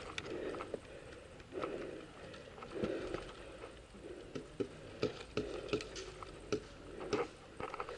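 Faint breathing and rustling of clothing and gear, close to the microphone, with scattered sharp clicks.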